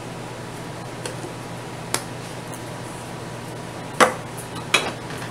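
Kitchen room tone with a steady low hum, broken by a few short knocks and clicks of kitchen items being handled: a light click about two seconds in, then two sharper knocks near the end.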